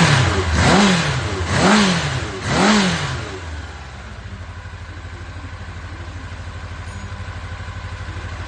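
Honda CB750F (RC04) air-cooled inline-four engine, a loose engine assembly, blipped three times in quick succession, each rev rising and falling, then settling to a steady idle about four seconds in. The seller describes it as running strongly with high compression and no abnormal noise.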